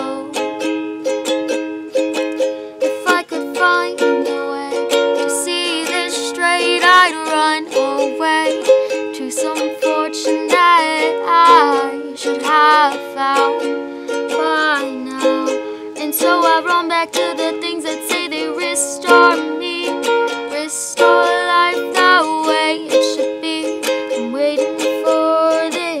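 A young woman singing solo to her own strummed ukulele, the chords ringing under a melodic vocal line.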